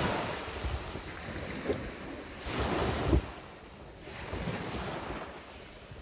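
Small sea waves breaking and washing up a pebble beach, swelling and fading in slow surges, the loudest about two and a half to three seconds in.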